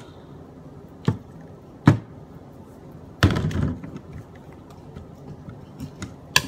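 A few sharp knocks of utensils and a bottle against ceramic bowls and the tabletop while slime is stirred: one about a second in, a louder one about two seconds in, and another near the end. A short scraping, rustling sound comes a little after three seconds.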